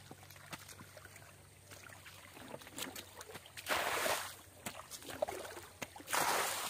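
Shallow water sloshing in a waterlogged field: two splashy swishes, about four and six seconds in, with small clicks and faint trickling between.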